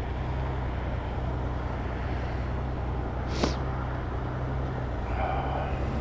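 Honda Goldwing GL1500's flat-six engine idling steadily at a stop, with a single sharp click about three and a half seconds in.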